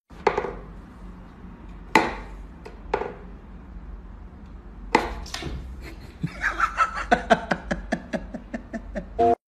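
Wooden knocks and clicks from a wooden whack-a-mole cat toy as its pegs are pushed to pop the mice up and the cat paws at them: single knocks about two, three and five seconds in, then a quick run of clicks over the last three seconds.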